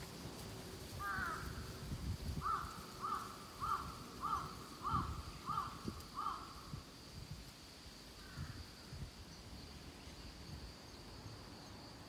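Wind gusting against the microphone in a forest, with a bird calling a quick run of about seven short, evenly spaced notes, plus one call before and one after. A faint steady high-pitched buzz, like insects, runs underneath.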